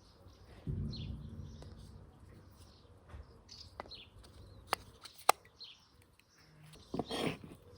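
Small birds chirping over and over in short calls, many falling in pitch. A low hum comes in about a second in and fades after a couple of seconds, a couple of sharp clicks follow, and there is a brief louder rustle near the end.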